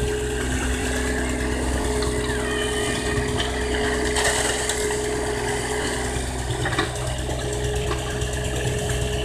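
Excavator's diesel engine running steadily with a steady whine over it, and a brief hiss about four seconds in.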